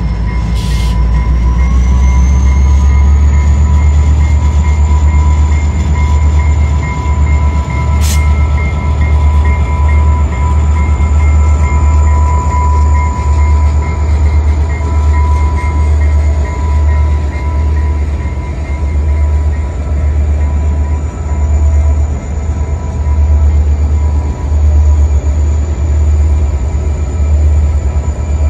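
Several diesel-electric freight locomotives passing slowly at close range: heavy, pulsing low engine rumble with a high steady whine that rises in pitch during the first few seconds. A single sharp click sounds about eight seconds in.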